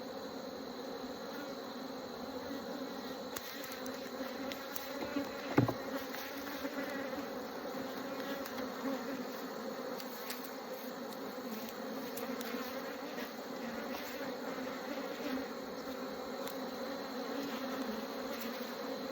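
Honeybees buzzing steadily around an open hive during an inspection, a continuous even hum. A single short knock about five and a half seconds in, with a few light clicks around it.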